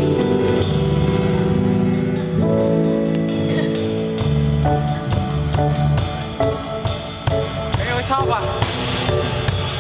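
Instrumental music with a drum kit and guitar, steady loud level, with a couple of quick rising slides near the end.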